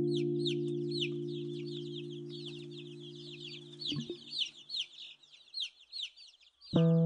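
Hang drum notes ringing and slowly dying away over the first four seconds, under a steady chatter of quick, high, falling bird-like chirps. There is a soft knock about four seconds in, then a new hang drum chord struck near the end.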